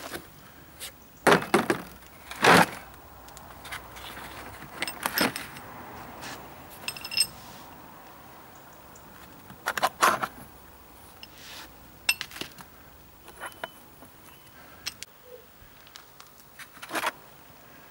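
Steel pieces of a wheel bearing tool set (plates, bushes and screws) clinking and knocking against each other as they are handled. The clinks and knocks are irregular and spread out, a few louder than the rest, and some ring briefly like metal.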